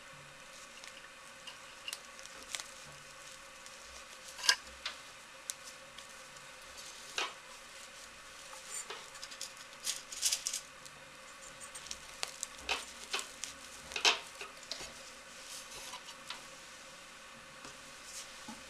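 Hands handling a stiff starched burlap hat and its pinned fabric lining: scattered rustling with irregular small sharp clicks and taps, a handful of them louder.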